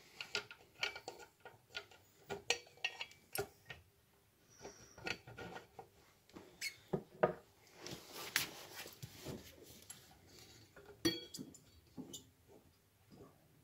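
Irregular metallic clicks and clinks of an AJP brake caliper, its bolts and a hand tool being handled and fitted at a moped's front brake disc.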